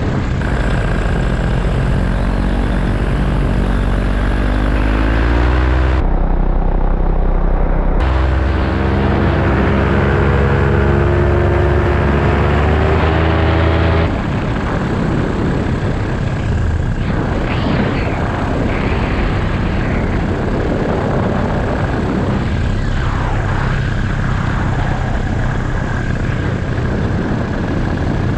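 Paramotor engine and propeller running in flight. The pitch climbs as the throttle opens in the first half, then the sound settles into a steadier, rougher drone mixed with rushing air.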